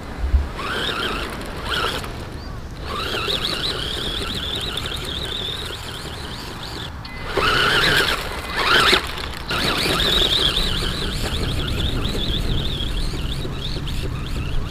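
Radio-controlled buggy's electric motor and drivetrain whining as it drives over sand, the pitch wavering up and down with the throttle and surging louder twice around the middle.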